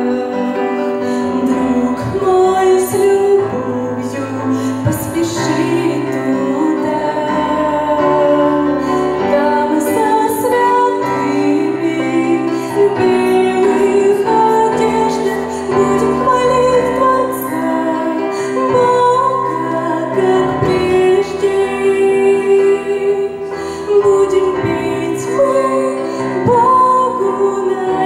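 A woman singing a Christian worship song with instrumental accompaniment, long held notes over a steady bass line.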